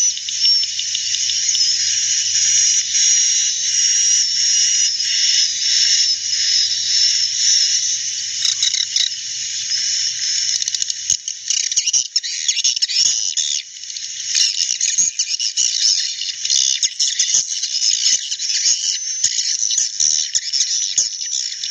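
Many edible-nest swiftlets chirping and twittering at once, their calls overlapping into a dense high chatter, with scattered sharp clicks through the second half. These are the birds' own calls, not the lure recordings that swiftlet farmers play.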